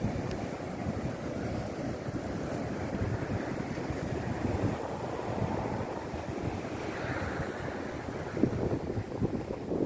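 Sea waves washing onto the shore in a steady rush of surf, with wind buffeting the microphone. It grows a little louder near the end.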